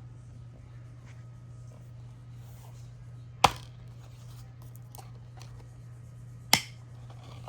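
Two sharp clicks about three seconds apart, with a few faint ticks, over a steady low hum.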